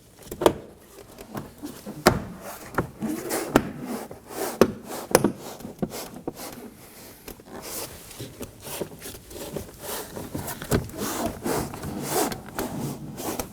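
Plastic retaining clips of a car's interior door panel snapping into the door as the panel is pressed in around its edges: a series of sharp clicks and knocks, with the panel rubbing and scraping against the door between them.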